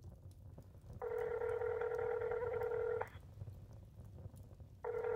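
Telephone ringback tone of an outgoing call ringing, twice. Each ring is a steady tone of about two seconds, the second starting about two seconds after the first ends.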